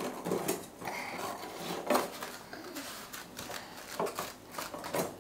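Irregular short clicks and rustles of light sorghum-pith craft sticks being handled and pushed into holes by toddlers.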